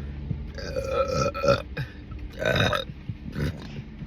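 A woman doing big, loud soda burps inside a car: one long pitched burp from about half a second in, a shorter one around two and a half seconds, and a small one near the end.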